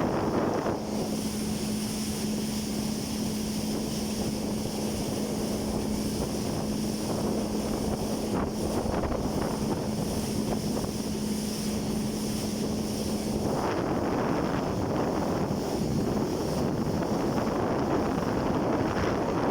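Personal watercraft (jet ski) engine running at a steady pace under heavy wind buffeting on the microphone and water noise; a steady engine hum holds from about a second in and drops out about two-thirds of the way through.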